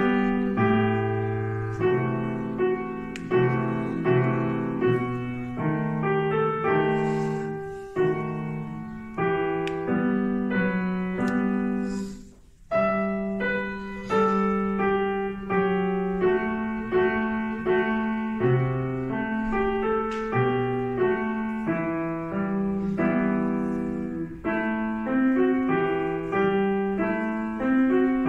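Grand piano played solo: a classical piece in a run of chords and melody over bass notes, with a brief pause about twelve seconds in before the playing resumes.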